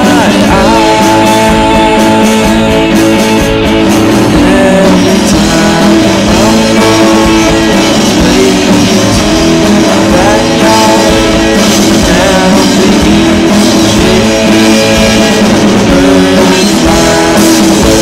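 Rock song with guitar and singing, playing loud and steady.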